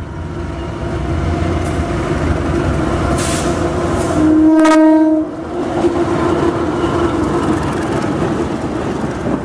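Passenger train hauled by a diesel locomotive passing close by, its engine and wheels making a steady rumble that grows as it approaches. About halfway through it sounds one horn blast lasting about a second.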